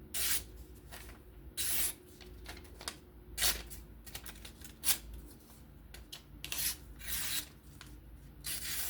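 Knife blade slicing through paper in about half a dozen short, scratchy strokes, as a sharpness test of a 14C-steel folding knife. The clean cuts show the edge is sharp.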